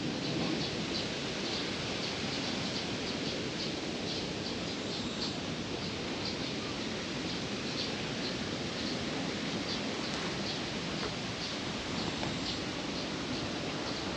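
Steady outdoor background noise in a leafy park, with a faint high chirp repeating about three times a second throughout.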